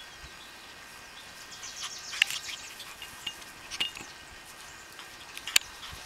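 Quiet outdoor background with a few brief high chirps and a couple of sharp clicks.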